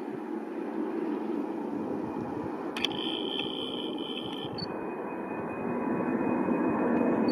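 Boeing 747-400 freighter's four GE CF6-80C2B1F turbofans at takeoff power, a steady jet roar growing louder as the plane climbs out. A short high whine, with a click at each end, sounds about three seconds in.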